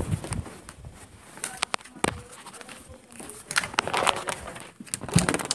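Scattered clicks, knocks and rustling on an old home audio recording, with faint, indistinct voices.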